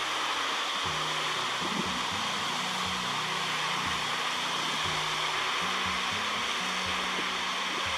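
Loud, steady rush of fast-flowing water, with soft background music underneath.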